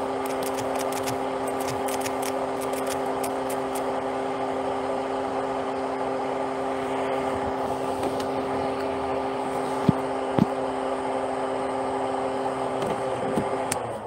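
Steady running hum inside a car, with two short knocks about ten seconds in; near the end the hum winds down with a falling pitch and stops, as the car is switched off.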